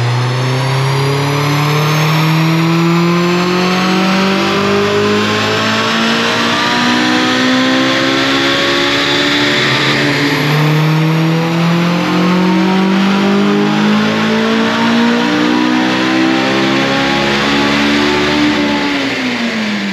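Honda S2000's four-cylinder engine under full throttle on a rolling-road dyno, breathing through an M2 Motorsport cat-back exhaust with its baffles fitted. The revs climb steadily, drop briefly about halfway, climb again, then fall away near the end as the throttle closes.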